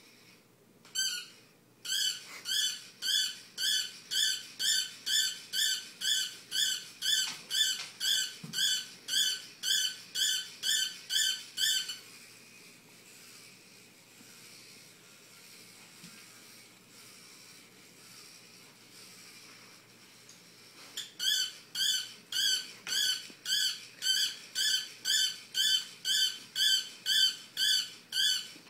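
Small robot toy dog giving a repeated electronic yip, two or three chirps a second, for about ten seconds; it stops, then starts yipping again about twenty seconds in.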